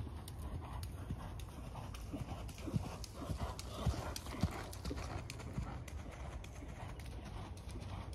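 Hoofbeats of a ridden pony on a soft arena surface. They are loudest in the middle as it passes close by.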